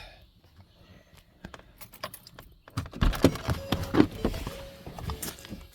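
Irregular clatter of knocks and rattles, as of hard objects being handled and shifted, starting about halfway through after a few faint clicks.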